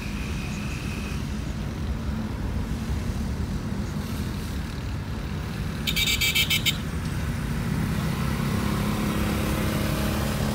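Car driving in town, heard from inside the cabin: steady low engine and road rumble. About six seconds in there is a brief, high, rapidly pulsing chirp or beep, and near the end a nearby engine grows louder.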